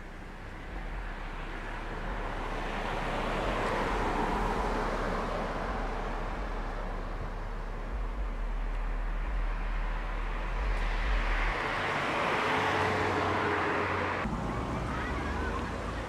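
Road traffic: cars passing on a nearby road, the tyre and engine noise swelling and fading twice, about four seconds in and again about twelve seconds in.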